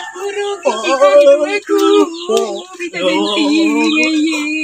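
A man's voice singing a wordless tune in long, bending notes, some held for over a second.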